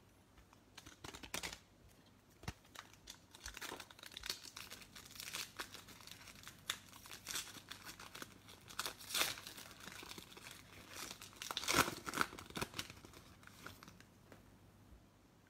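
Foil trading-card pack wrapper of a Chronicles Draft Picks football pack crinkling and tearing as it is opened by hand and the cards are pulled out. It comes as irregular crackly rustles, starting about a second in, loudest a few seconds before the end and stopping shortly before the end.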